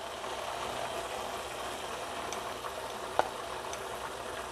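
Water with a little cooking oil boiling in a frying pan around chive dumplings, a steady bubbling hiss, with one short click a little after three seconds in.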